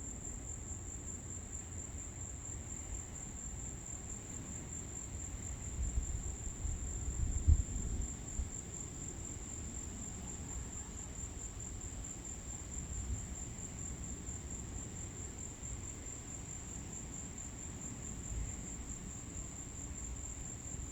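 Insects trilling: one steady, unbroken high-pitched tone. A low rumble swells about six to eight seconds in, with one brief loud bump near its peak.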